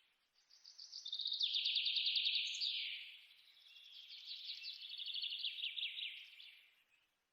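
High, rapid chirping trills in two long phrases, like a songbird singing.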